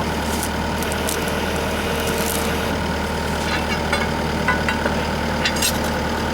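Skid steer engine running steadily at idle, with a few short clicks and squeaks on top.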